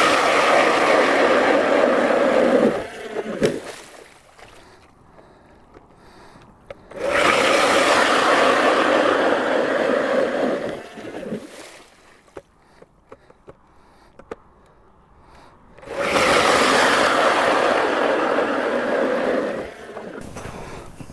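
ION Alpha battery-powered electric ice auger drilling through lake ice three times, each run about four seconds with a steady motor whine. The first run is already going at the start and stops about three seconds in; the others start about seven and sixteen seconds in. Between runs there are quieter gaps with small clicks and crunches as the auger is lifted and moved.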